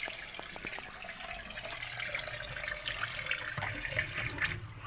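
Water running out of a Samsung automatic washing machine's drain in a steady splashing stream. It flows freely now that the coins clogging the drain have been removed.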